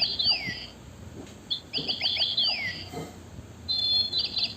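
Toy bird chirping: a phrase of quick chirps ending in a falling whistle, played again almost identically about a second and a half later, then a different rapid trilling phrase near the end.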